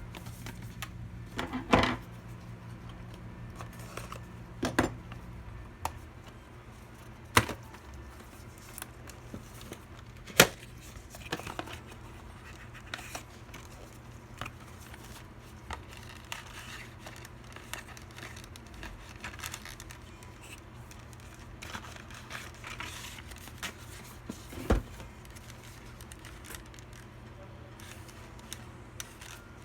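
Hands handling PC components and their packaging: scattered sharp clicks and knocks with soft plastic rustling and crinkling between them, the loudest click about ten seconds in.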